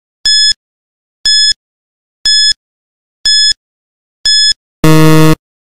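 Quiz countdown timer sound effect: five short, high-pitched beeps about a second apart, then a louder, lower buzzer near the end signalling that time is up.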